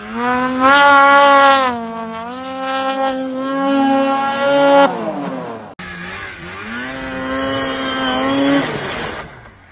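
Snowmobile engine running at high revs, its pitch rising and falling with the throttle. It breaks off abruptly about six seconds in, then runs again before fading out near the end.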